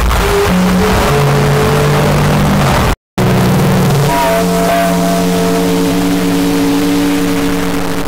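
Train whistle or horn blasts: two long, held multi-note chords, cut apart by a brief silence about three seconds in.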